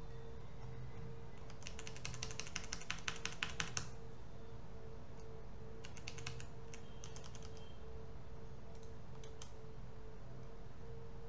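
Computer keyboard typing in short bursts: a quick run of keystrokes about two seconds in, another shorter run around six seconds, and a few single clicks later, over a steady faint hum.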